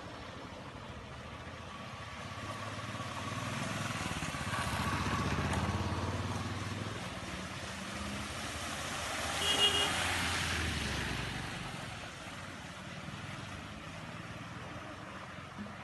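Motor traffic going by, one vehicle's engine swelling and fading, with a short horn toot about nine and a half seconds in.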